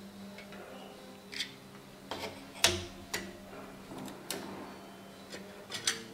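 Scattered light clicks and taps of plastic lamp parts being handled: the layers of a disassembled LED recessed downlight, a plastic light-diffuser sheet among them, lifted and set against the housing.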